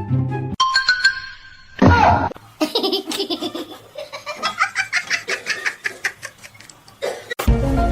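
Background music cuts off; after a short, loud cry, a person laughs in quick, rapid pulses for several seconds. Music starts again near the end.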